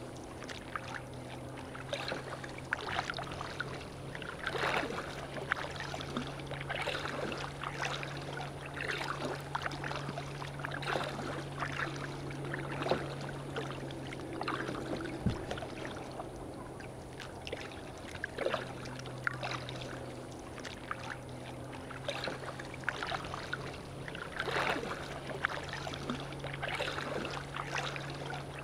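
A kayak being paddled: water splashing from the paddle strokes every second or two and lapping at the hull. A steady low hum runs underneath.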